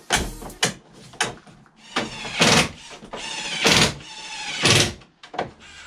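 Plastic front grille of a VW T5 Transporter being pressed into its clips: small clicks and three louder squeaks, about a second apart.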